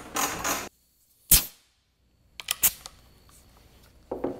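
One sharp, loud crack about a second and a half in, then a couple of lighter clicks and knocks: tools being picked up and handled on a wooden workbench.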